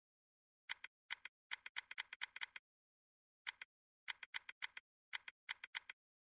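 Online slot game's button-click sound effects: a string of short sharp clicks in quick runs, with a pause about three seconds in, as the stake is stepped down on the bet button.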